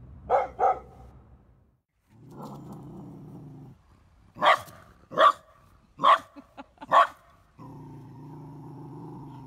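Dogs barking and growling at a statue as if at an intruder: two quick barks, then a low growl, four sharp barks about a second apart, and another low growl near the end.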